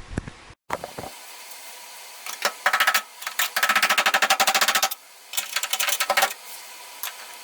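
Rapid ratcheting clicks in three short runs, each about a second long, as the fuel pump is tightened down into the fuel tank with its thicker old O-ring.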